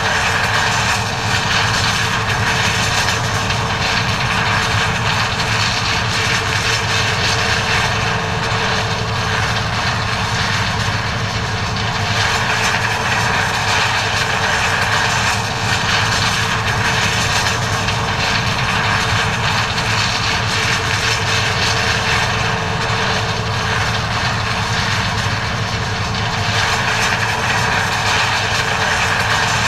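John Deere 9400 combine harvesting corn: a steady, loud drone of its diesel engine and threshing machinery with constant humming tones, unchanging throughout.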